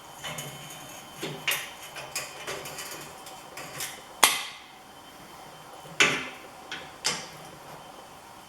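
Metal clanking and knocking as steel workpieces and welding gear are handled and set down: a string of irregular sharp metallic impacts, the loudest about four seconds in and two more strong ones a couple of seconds later.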